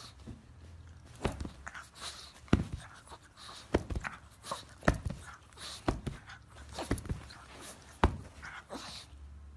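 Pug breathing in short, noisy huffs, about one or two a second, as it plays and mouths at a hand.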